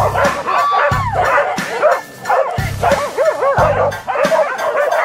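Hunting dogs barking and yelping in short cries that rise and fall in pitch, over background music with a regular drum beat.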